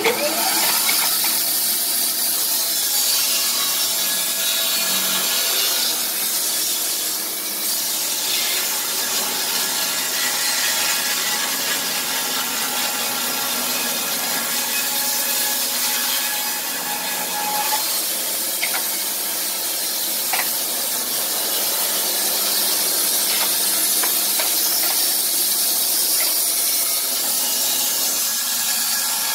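Wood-Mizer LT15 portable band sawmill, driven by an electric motor, sawing through a squared timber log. Its whine rises as it comes up to speed at the very start, then it runs as a steady, loud cut.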